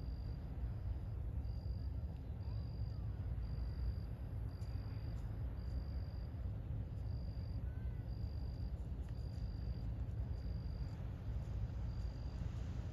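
A cricket chirping steadily in a regular series of high, evenly spaced chirps, about one and a half a second, over a low steady rumble.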